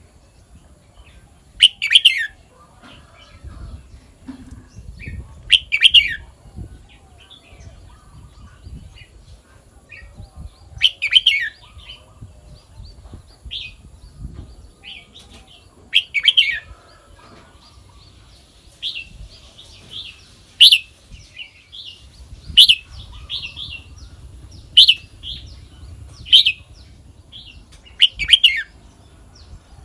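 Red-whiskered bulbul singing short, loud, whistled phrases, one every four to five seconds at first, then about every two seconds in the second half.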